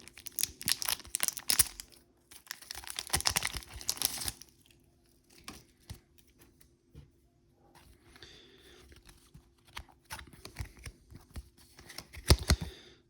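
A plastic packet being torn open and crinkled, in irregular bursts of rustling that are loudest in the first few seconds, with a few sharp knocks near the end.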